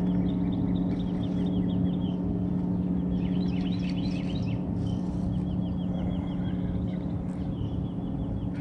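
Steady electric hum of a bass boat's bow-mounted trolling motor, with a small bird's repeated high chirping trills over it.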